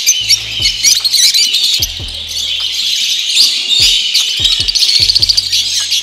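Many caged birds, lovebirds among them, chirping and chattering at once in a dense, shrill, continuous din. Underneath runs background music with a deep bass line and a thumping beat.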